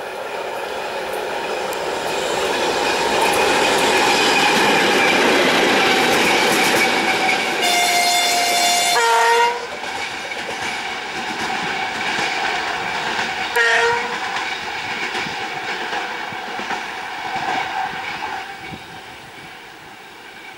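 ChME3 diesel shunting locomotive running light past, its engine and wheels growing louder as it approaches and passes, then fading as it pulls away. It sounds its horn twice: a long blast about eight seconds in that changes to a lower note at its end, and a short one about fourteen seconds in.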